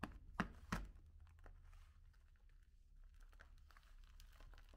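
Faint crumbly rustling and crackling as fingers scrape ground chocolate candy out of a hand-crank meat grinder's barrel and break it off the cutting plate, with two sharp clicks in the first second.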